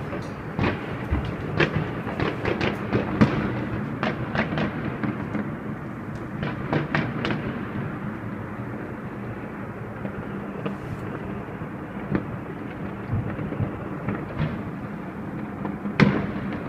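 Fireworks exploding over a city: a constant rumble of many distant bursts with frequent sharp bangs on top. The bangs come thick and fast in the first half and thin out after the middle, with one loud bang near the end.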